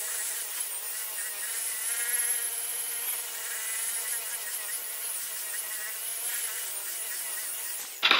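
Electric rotary polisher with a foam pad running steadily, buffing rubbing compound on an oxidized plastic headlight lens. Its motor whine wavers slightly in pitch and cuts off suddenly near the end.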